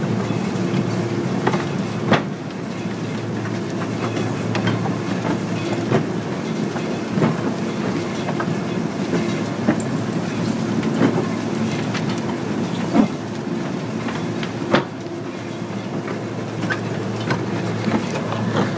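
Bucket-wheel excavator at work: the wheel turning with a steady mechanical rumble, hum and clatter as its buckets cut into earth, with a sharp clank every few seconds.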